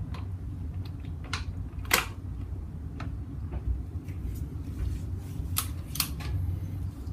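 Steel hand tools clinking and clicking as a socket, extension and torque wrench are fitted and worked on a motorcycle's final-drive drain plug: about eight separate sharp clicks, the loudest about two seconds in, over a steady low hum.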